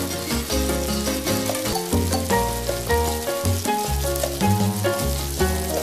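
Chopped onion and garlic sizzling in hot oil in a frying pan, under background music with a steady beat and bass line.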